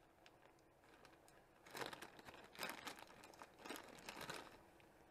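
Clear plastic zip-lock bag crinkling as it is opened and handled: a few light ticks, then bursts of crinkling from about two seconds in that die away near the end.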